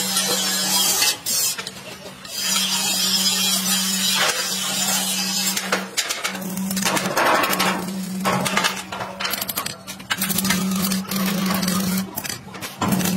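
Stick (arc) welding on a steel frame: a steady crackling sizzle with an electric hum, stopping and restarting several times as the arc is broken and struck again.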